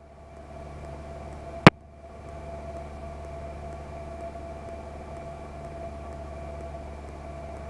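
Steady drone of a 1946 Ercoupe 415-C's small piston engine and propeller, heard inside the cockpit. It fades in at the start, and there is a single sharp click about one and a half seconds in.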